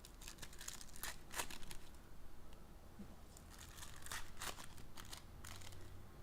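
Trading-card pack wrappers crinkling and tearing as packs are ripped open, in short clusters about a second in and again around four seconds in.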